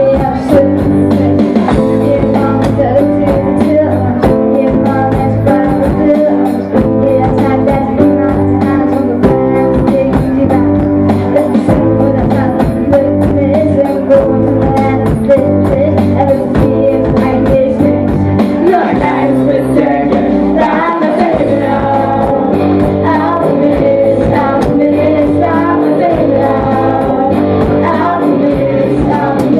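Rock music played live by a band: a singer over guitar and a steady drum beat.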